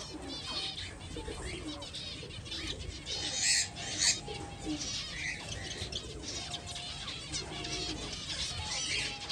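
A group of caged finches chirping and calling, many short overlapping calls at once, with two louder bursts about three and a half and four seconds in.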